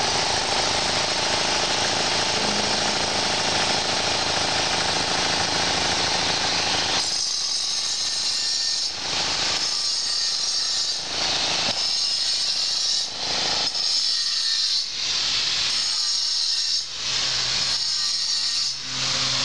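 Handheld power tool grinding and smoothing the inside of a hole in kersantite stone, a steady loud whirring hiss. About 7 s in, the lower grinding noise drops away and a high hiss carries on, broken by short dips every second or two.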